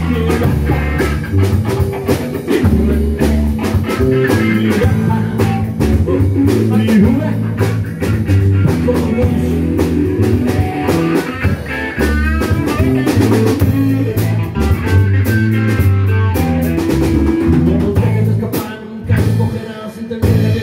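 Blues band playing together: electric bass, a Ludwig drum kit and an electric guitar through a Marshall amp, a steady blues groove.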